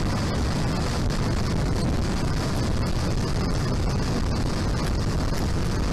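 Steady wind rush and road rumble at highway speed, heard from a moving vehicle.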